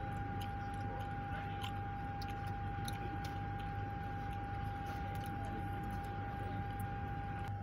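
A steady, high-pitched electrical whine over a low hum, with faint scattered ticks, inside the cabin of a Toyota Harrier hybrid standing in Ready mode in neutral while its hybrid battery drains.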